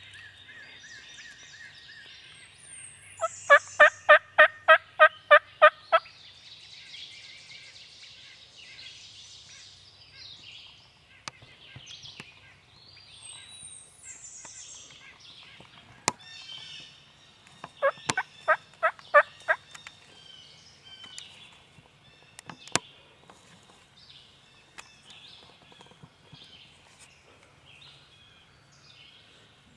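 Wild turkey yelping: a run of about nine evenly spaced yelps a few seconds in, and a shorter run of about six midway. Songbirds sing throughout.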